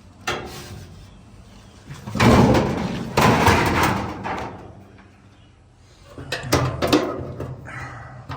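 Sheet-metal dryer cabinet panels being handled: a clunk, a loud scraping rattle lasting a couple of seconds, then a quick run of sharp knocks and clicks.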